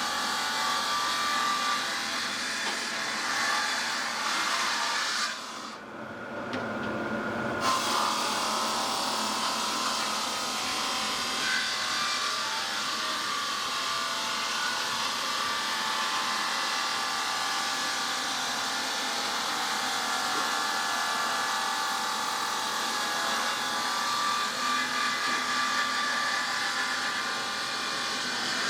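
Industrial stone-cutting saw running through a stone block, a steady grinding hiss with a faint whine. About six seconds in, the hiss drops away for roughly two seconds, leaving a lower hum, then the cutting sound comes back.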